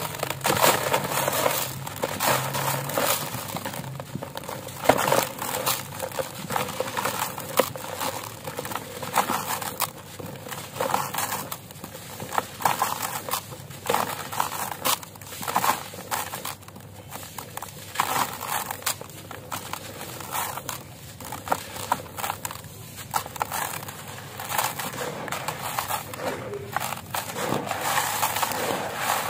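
Hands crushing and crumbling a dry, gravelly block of cast black concrete: a dense, continuous crunching and crackling with irregular louder crunches, as grit and small stones pour into a plastic tub.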